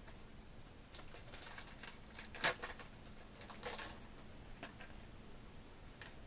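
Small plastic toy parts and packaging being handled: scattered light clicks and short crinkling rustles, the loudest about two and a half seconds in.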